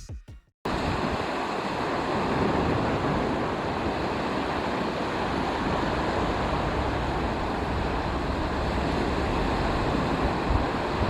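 Waves breaking on a rocky shore in a rough sea, a steady rush of surf.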